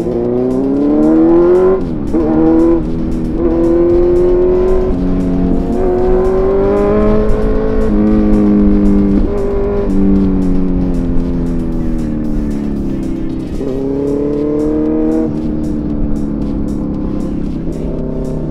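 Inline-four sport motorcycle engine pulling hard, its pitch rising and dropping back again and again as the rider shifts through the gears. Background music with a steady beat runs underneath.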